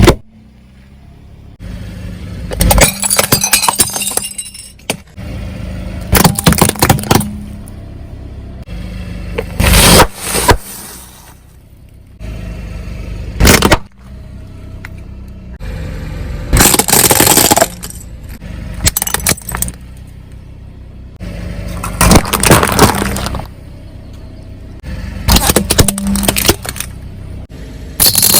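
Objects crushed under a car's tyres: about nine loud crunching, cracking bursts spread through the stretch, with a quieter steady low hum from the car between them.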